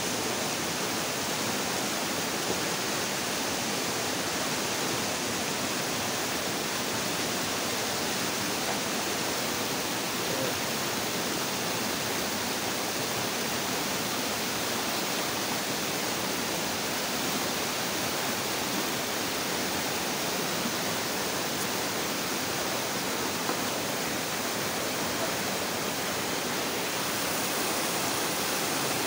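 Steady rush of a rocky river flowing over rapids, an even noise of water without breaks.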